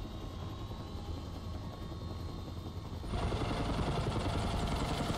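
Helicopter engine and rotor running in flight, first as a steady low drone inside the cockpit. About three seconds in it cuts to the helicopter heard from outside, louder and fuller.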